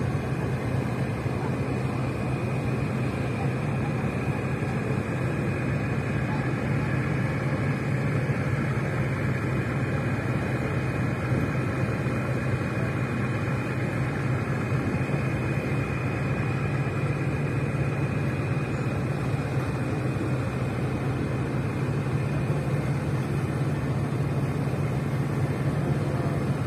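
Steady low drone of a ship's diesel engine running, with no change in pitch or level.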